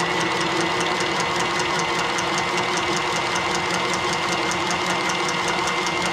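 Milwaukee Inox cordless pipe cutter running steadily with a quick regular ticking as it cuts through carbon steel press-fit pipe.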